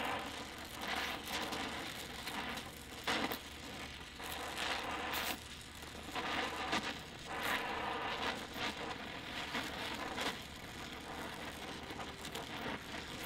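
Oxy-fuel welding torch flame hissing on steel plate while a root pass is run, with irregular sharp crackles every half second or so.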